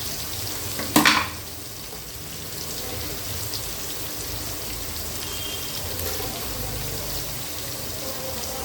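Small onions frying in hot oil in a cooking pot and being stirred, with a steady sizzle. A single sharp knock about a second in.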